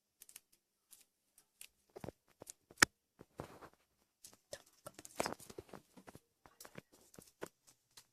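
Homemade slime being handled: a run of irregular short sticky clicks and pops, the sharpest about three seconds in and a denser cluster near the middle.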